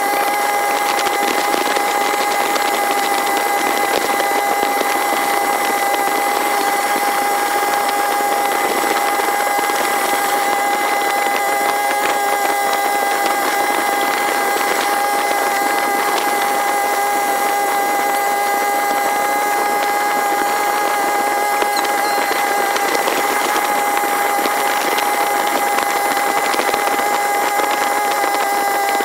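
Long-tail boat engine running at a steady speed, sped up with the picture so that it sounds as a constant high-pitched drone over a steady hiss.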